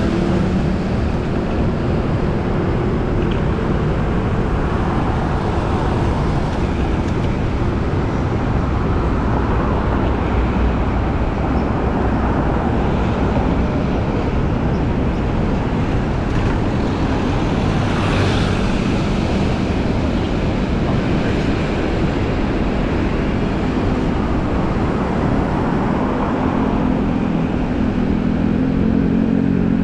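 Busy city road traffic heard while riding alongside it: a steady rush of vehicles and tyres with heavy wind noise on the microphone. A vehicle's engine hums close by near the start and again near the end, and a passing vehicle swells briefly about two-thirds of the way through.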